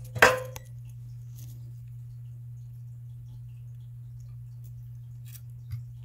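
A sharp metallic clink with a short ringing tone about a quarter second in, from steel hand tools and a small metal pin being handled, then a fainter click near the end. A steady low hum runs underneath.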